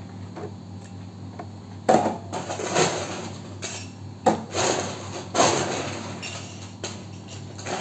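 Bar-work clatter: a run of sharp knocks, clinks and short rattles as glassware and bar equipment are handled on the back counter, starting about two seconds in, over a steady low hum.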